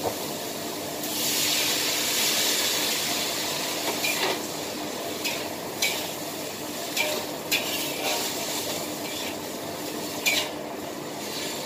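Beef and vegetable stir-fry sizzling in a wok, the sizzle swelling louder for a couple of seconds about a second in. From about four seconds on a spatula scrapes and clanks against the wok every second or so as the food is tossed.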